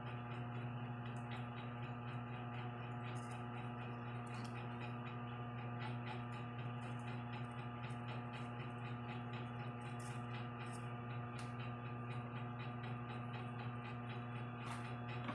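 A steady low electrical hum with faint light clicks scattered through it.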